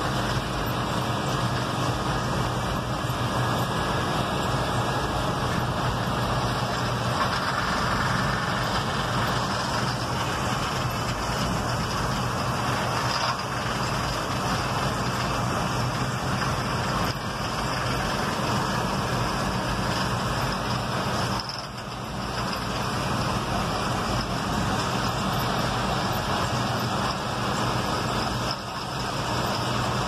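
Steady running noise of a Massey Ferguson 850 diesel combine harvesting soybeans, heard from inside a vehicle driving alongside it and mixed with that vehicle's own engine and tyre noise. The sound dips briefly twice in the second half.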